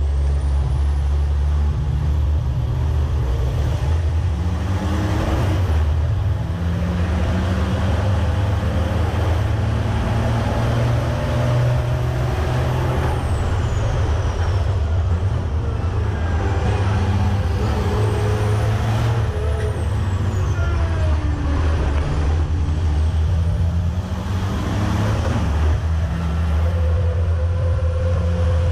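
Freightliner race truck's heavy diesel engine at racing speed, a loud deep drone whose pitch climbs and drops repeatedly as the revs rise and fall through gear changes, with other race trucks close around.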